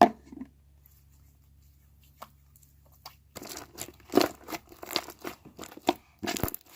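A sharp click right at the start, then from about three seconds in a dense run of irregular crackling and tearing as stiff, over-activated slime is stretched and kneaded by hand.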